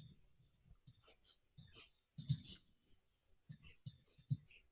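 A series of faint, irregular clicks and soft knocks, about a dozen in all, each a short dull thud with a sharp tick on top.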